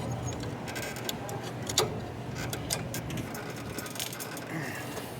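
Scattered sharp metal clicks and taps of a screwdriver levering brake pads and caliper pistons back into a motorcycle's brake caliper, over a steady low hum.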